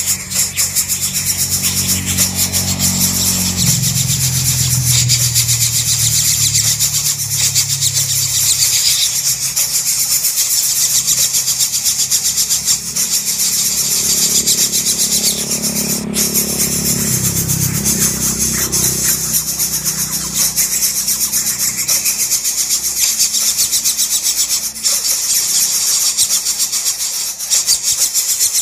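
Greater coucal nestlings giving a continuous harsh, rapidly pulsing rasp as they beg for food. Under it a motor engine runs low, swelling twice: about three seconds in and again around fifteen seconds.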